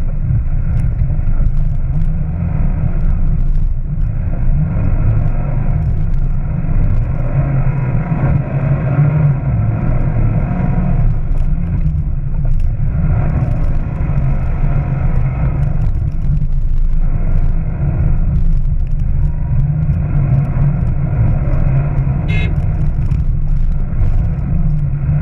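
Off-road vehicle engine running steadily under load while driving over a dirt course, heard from on board as a loud, continuous low rumble.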